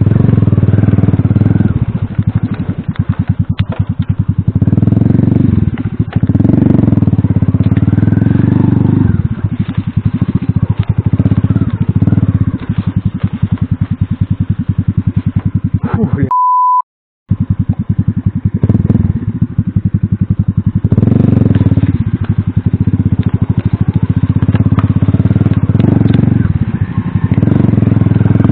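Single-cylinder four-stroke engine of an Alpha moped-style motorcycle running on a ride, the revs rising and falling again and again with the throttle. About two-thirds of the way in, the sound cuts out for about a second and a steady beep plays in its place.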